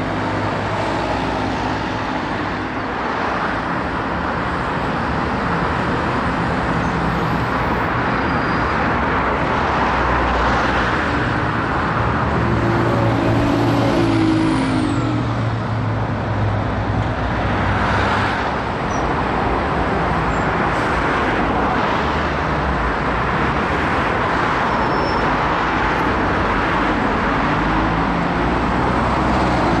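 Road traffic with Alexander Dennis Enviro 200 single-deck buses' diesel engines running as they pull away, pass close by and approach.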